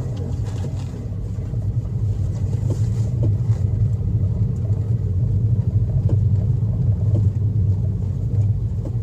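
Steady low drone of a 2009 Toyota Vios driving, heard from inside the cabin: engine and road noise together, growing a little louder through the middle.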